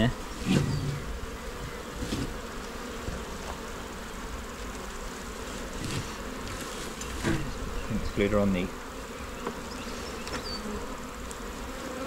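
Honey bees buzzing steadily around an opened hive, the colony's hum rising in a few brief louder swells.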